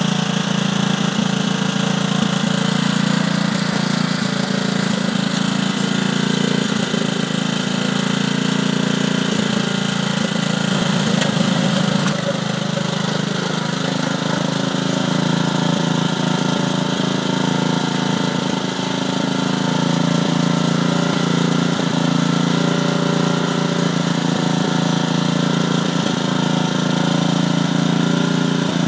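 Muck-Truck motorised wheelbarrow's small engine running steadily, with its note shifting about twelve seconds in and again near twenty seconds as the machine idles and drives.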